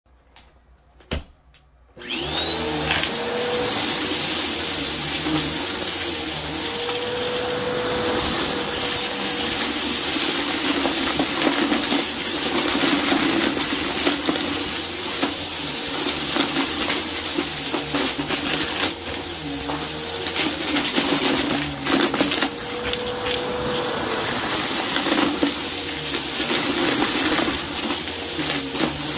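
Bissell upright vacuum cleaner: a single click, then about two seconds in the motor starts with a short rising whine and runs steadily. As it sucks up dried lentils, seeds, lint and coins from a rug, small crackling crunches sound over the steady motor noise.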